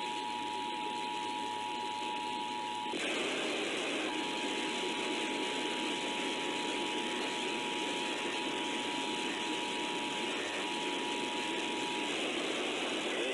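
Emergency Alert System two-tone attention signal, 853 and 960 Hz sounding together, over heavy radio hiss and static. The tone drops out for about a second some three seconds in, comes back, and stops about twelve seconds in, leaving only the hiss.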